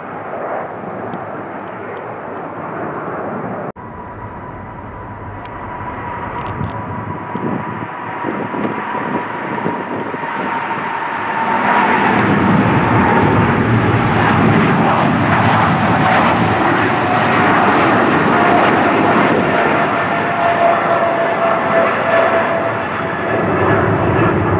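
Jet engine rumble of a four-engine Airbus A340 climbing away. It is cut off a few seconds in by a Boeing 777 with GE90 engines at take-off thrust, its roar building over several seconds to loud, with a whine that slowly falls in pitch as it climbs away.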